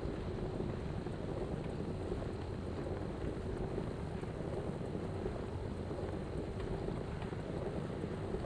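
Steady wind noise on the microphone: an even, low rumbling hiss with no distinct events.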